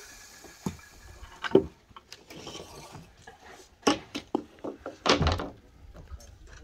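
Wooden planks knocking and clattering as they are handled and set down: a string of hollow thuds, the loudest about a second and a half in, and a cluster around four and five seconds in.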